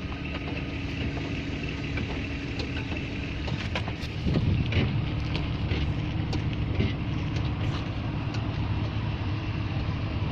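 BMW E38 on the move: steady road and running-gear rumble, louder about four seconds in, with scattered sharp clicks and knocks. This is the rear knock being tracked down, a click from the back of the car.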